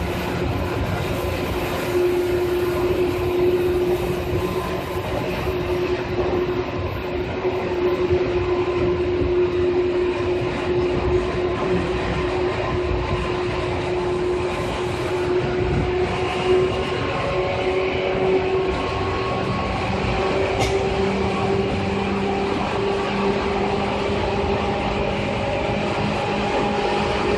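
Seibu 2000 series electric train running: a steady rumble of wheels on rails under a motor and gear whine whose pitch rises slowly as the train gathers speed.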